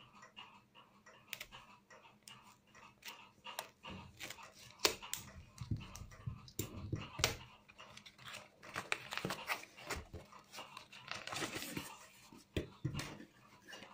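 Small cardboard parcel wrapped in plastic tape being cut with scissors and torn open by hand: a run of sharp clicks, crinkles and tearing, with a longer rustle near the end as the box inside is pulled out of its cardboard wrapping.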